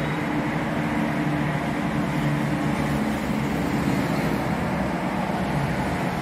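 Steady, unbroken wash of city road traffic, with a low engine hum underneath.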